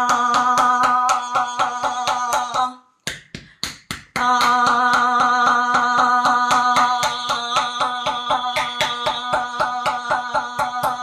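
A person holding a long, steady 'aaah' while pounding their chest quickly with the fists, several thumps a second, each one shaking the voice into a rapid warble. This is chest percussion meant to loosen phlegm in the throat and lungs. Both stop for a breath about three seconds in, then start again.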